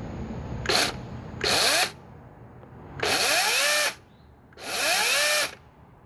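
Greenworks 40-volt brushless cordless chainsaw revved in four short bursts, its motor whining up in pitch and winding down after each trigger pull. The first burst is brief; the last two last about a second each.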